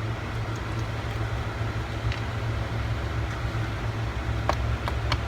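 Steady low hum with a few faint, light clicks, about two seconds in and again near the end.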